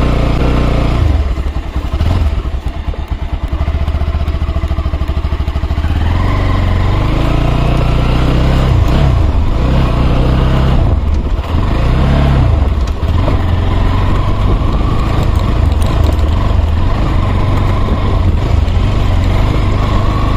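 Motorcycle engine pulling away at low revs, then revving up and easing off a few times before running steadily as the bike rides along.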